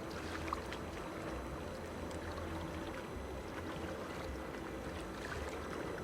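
Steady harbourside ambience: an even wash of noise over a low rumble, with a few faint scattered ticks.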